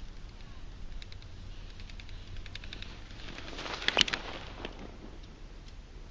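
A bicycle riding past close by over packed snow: the tyre crunch swells to a peak about four seconds in with a sharp click, then fades. Light clicks are heard before it.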